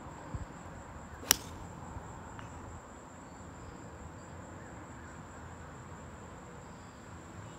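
A golf club strikes the ball on a tee shot: one sharp crack about a second in.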